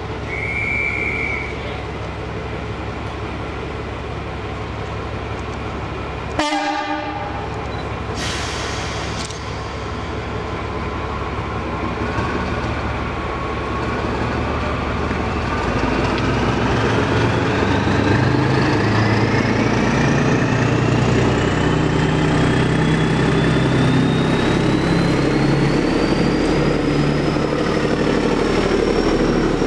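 British Rail Class 14 diesel-hydraulic locomotive D9531, its Paxman Ventura V6 diesel running, with a brief high whistle near the start and a short horn blast about six seconds in. From about halfway the engine is opened up and the locomotive moves off, with a whine that rises steadily in pitch and grows louder.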